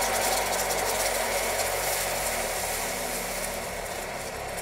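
Hot caramel sizzling and bubbling hard as hot cream is poured in to deglaze it: a steady crackling hiss that slowly dies down.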